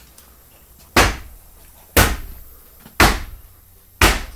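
Four loud bangs about a second apart, each fading out quickly, like heavy blows or slams on something solid.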